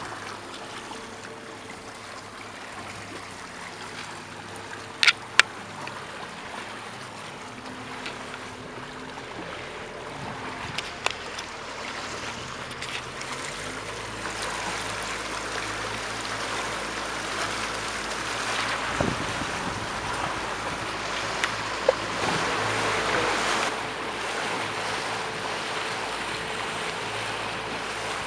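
A small speedboat's engine running, with water rushing along the hull and wind on the microphone; the engine note shifts and the water noise grows louder from about halfway. Two sharp knocks about five seconds in, and a few more later.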